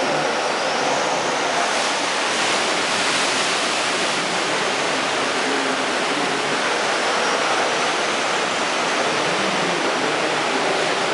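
Steady rushing of surf and sea water washing over rocks in a sea cave.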